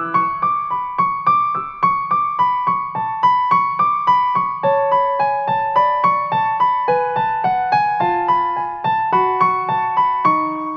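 Background music: a piano playing a steady, evenly paced run of notes, about three to four a second, over held lower notes.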